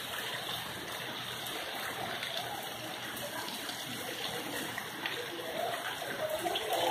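Heavy rain falling steadily, an even hiss that does not let up.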